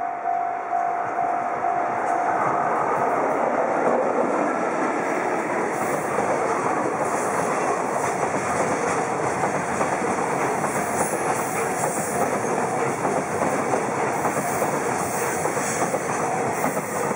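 EF81 electric locomotive passing close by with a long container freight train, the wagons' wheels clattering over the rail joints in a steady rush of rail noise. A level crossing bell dings in rapid, even pulses at the start and fades under the train noise about two and a half seconds in.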